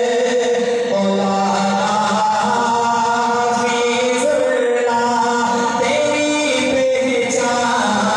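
A man singing a naat solo and unaccompanied into a microphone, holding long drawn-out notes that slide slowly in pitch.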